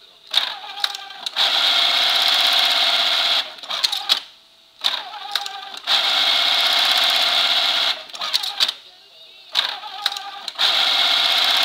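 Dürkopp 578 automatic eyelet buttonhole sewing machine working through its cycles: about two seconds of fast steady stitching, then a quieter spell of clicks and knocks, repeated three times.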